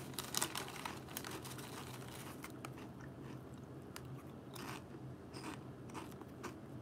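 Crunchy chips being bitten and chewed: a sharp crunch just under half a second in, then scattered smaller crunches, over a faint low hum.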